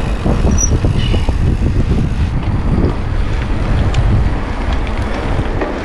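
Wind buffeting an action camera's microphone while riding a mountain bike: a loud, steady low rumble, with faint clicks from the bike over the ground.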